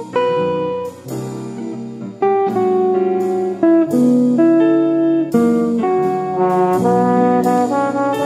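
Background music: a melody of held, pitched notes changing every half second to a second or so, over an accompaniment with sharp percussive hits.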